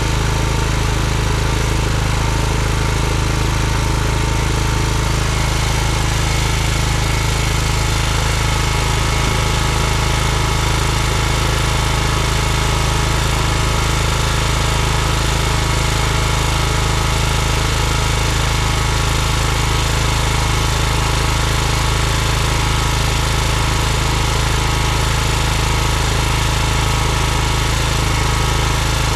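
Small lawn tractor engine running at a steady speed.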